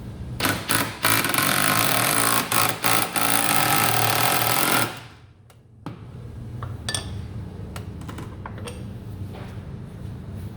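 Power tool running loudly, in a few short bursts and then steadily for about four seconds before cutting off sharply, followed by light clicks and knocks of hand work.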